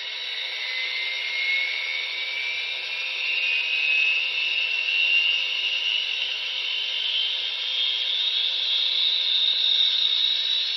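Sound-decoder gas-turbine start-up from a ScaleTrains model of Union Pacific's 'Big Blow' turbine locomotive, played through the model's small speaker: a whine that climbs steadily in pitch over a rushing hiss as the turbine spools up.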